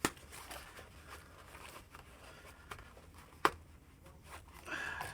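Faint rustling as a bag is handled and opened, with two sharp clicks, one at the start and one about three and a half seconds in.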